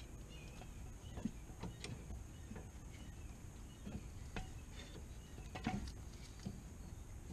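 A large C-clamp being set on a rear disc brake caliper and tightened to push the piston back in: a few scattered clicks and knocks, with no steady sound.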